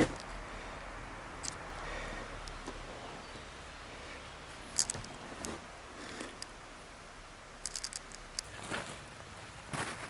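Scattered light clicks and taps over a faint steady hiss, with a low hum that fades out about two and a half seconds in.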